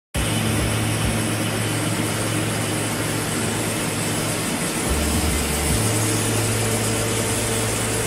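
Loud, steady drone of a running machine with a low hum underneath; a deeper hum joins briefly about five seconds in.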